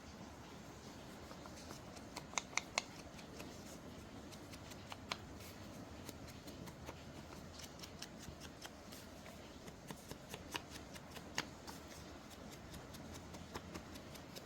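Paper being handled and shuffled during junk-journal crafting, with scattered small taps and clicks, a tight run of three louder ones about two and a half seconds in, over a steady hiss of rain.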